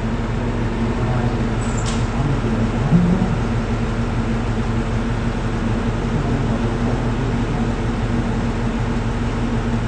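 A KiHa E130 diesel railcar standing with its engine idling: a steady low hum. A short click comes about two seconds in.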